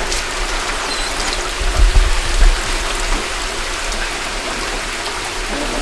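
Steady rush of running water as water dumped from a pool in a truck bed keeps pouring and draining away, with a few low thumps about two seconds in.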